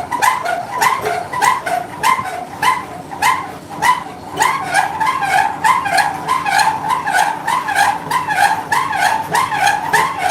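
Mill machinery running with a rhythmic pitched squeal that repeats a little over twice a second, a sharp click on each beat.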